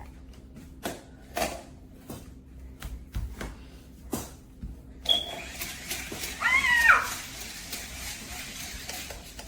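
Plastic clicks and knocks from a remote-control T-rex toy being handled and its buttons pressed. About five seconds in, a steady hiss starts, with a short warbling cry over it.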